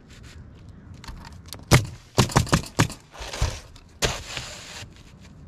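Roof shingling work: a sharp knock, then four quick sharp clacks, then a scraping hiss near the end that starts suddenly and lasts nearly a second.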